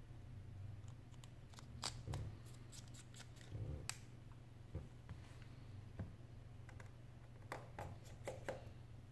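Small, scattered clicks and taps of a precision screwdriver and tiny metal parts of an iPhone 6 display assembly being handled and set down on a work mat, with a cluster of taps near the end. A low steady hum runs underneath.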